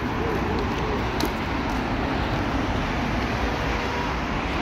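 A steady, deep rumbling noise with no clear pitch.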